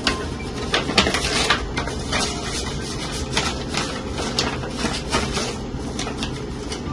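Sheets of paper and envelopes being handled, rustling with a string of sharp crackles over a steady low hum.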